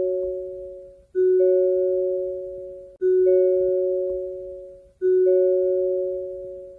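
Hyundai car door-open warning chime: a two-note electronic chime, a lower note then a higher one a moment later, each fading out and repeating about every two seconds, three times over.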